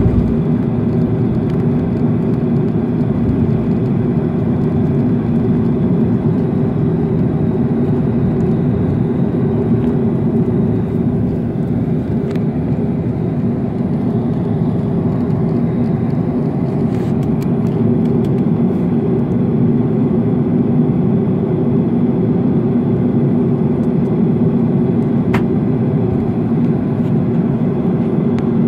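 Boeing 737-500 cabin noise during the takeoff roll: the CFM56-3 turbofan engines at takeoff power make a steady, loud low noise that holds level throughout. A few faint sharp clicks of cabin rattle sound over it.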